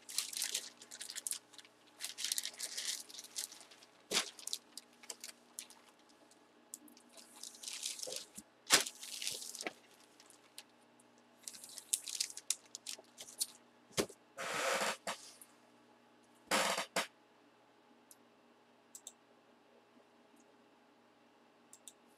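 Clear plastic bag crinkling and rustling in bursts as a packaged jersey is handled, with quiet gaps between and little after about two-thirds of the way in.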